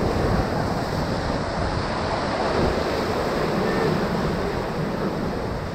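Whitewater rapids rushing around a raft: a steady, unbroken rush of churning river water.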